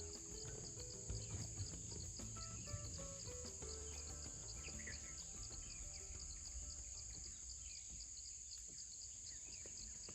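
Jungle insect chorus: a steady, high-pitched drone with a rapid regular pulsing just beneath it. Faint music with a slow melody sits underneath for the first half.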